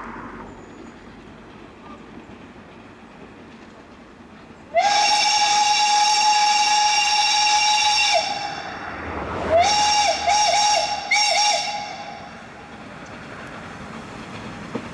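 Steam whistle of the narrow-gauge rack locomotive ΔΚ8.001: one long steady blast of about three seconds, then after a short pause a quick series of three or four short toots, over the low sound of the train running.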